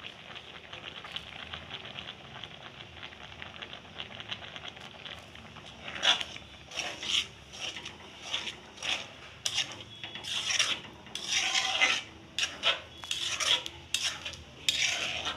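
Metal spatula stirring and scraping chhena with sugar and ghee against the bottom of a karahi on the heat, over a faint steady sizzle. From about six seconds in, the scraping strokes turn loud and quick, about two a second.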